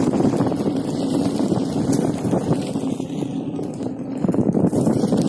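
Wind buffeting the microphone over the steady rumble of an Inmotion V5F electric unicycle's tyre rolling along a bumpy dirt path.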